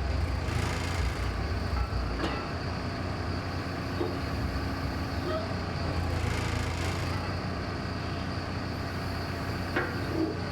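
An engine running steadily with a low drone, with a few light clicks or taps.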